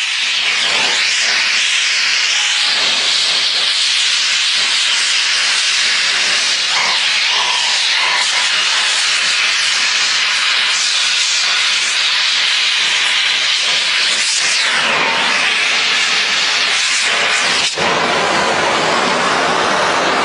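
Gas welding torch flame hissing loudly and steadily while steel frame joints are heated and welded.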